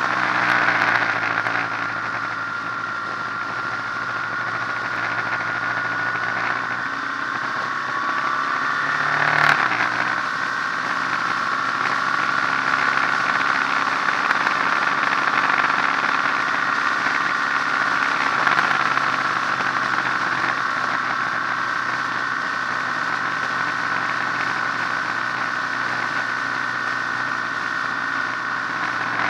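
Motorcycle engine running steadily while riding at road speed, with wind noise over the microphone. The engine note breaks and shifts briefly about nine seconds in.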